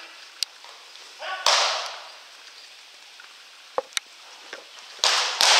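A pitched baseball smacks into a catcher's mitt with a loud pop near the end, after another loud pop about a second and a half in and a few light clicks in between.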